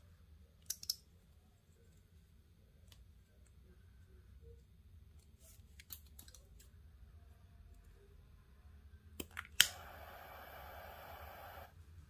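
Paracord being handled with a few faint clicks, then two sharp clicks about nine and a half seconds in as a butane torch lighter is sparked. It is followed by about two seconds of steady flame hiss that cuts off suddenly.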